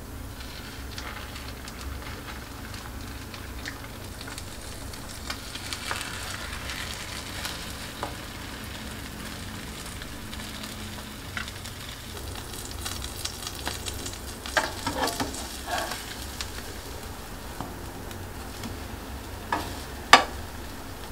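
Butter sizzling in a nonstick frying pan as slices of bread soaked in coffee milk and egg fry in it, a steady hiss for the whole stretch. Scattered clicks come through the middle, and one sharp knock, the loudest sound, comes near the end as a metal spatula hits the pan.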